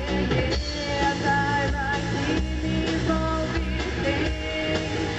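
Rock song playing: a full band with a sustained melodic line over it.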